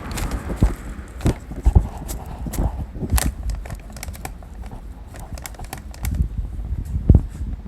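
Irregular clicks and knocks over a low rumble, with no steady rhythm; the loudest knock comes about seven seconds in.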